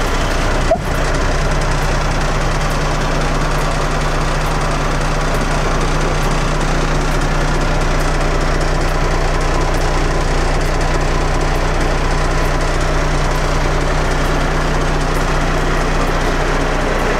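Cummins ISC straight-six diesel of a Kenworth T300 truck idling steadily, heard from inside the cab. A single sharp click comes just under a second in.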